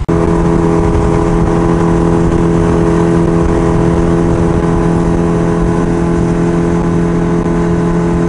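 Mercury 60 outboard motor running at a steady cruising speed under way, a constant even engine note with a low rushing noise beneath it.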